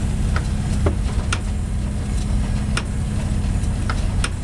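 An engine idling with a steady low drone, heard from inside a car's cabin, with scattered light ticks now and then.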